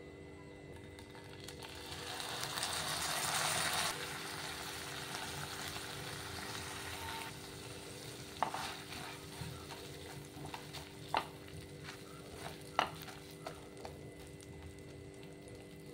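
Butter sizzling as it melts in a hot non-stick frying pan, growing louder and then cutting off about four seconds in. After that, pav bhaji mash fries softly while a spatula stirs and spreads it, with a few sharp knocks of the spatula against the pan.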